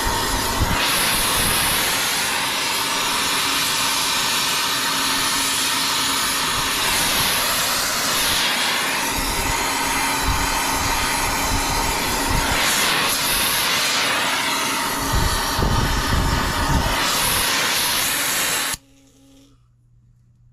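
Torch flame on copper refrigerant line joints of an evaporator coil, a loud steady hiss, with a deeper rumble swelling a few seconds before the end. The torch is shut off suddenly near the end, as the joints are finished.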